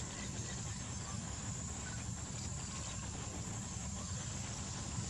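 Forest ambience: a steady high-pitched insect drone over a continuous low rumble, with no distinct calls or knocks.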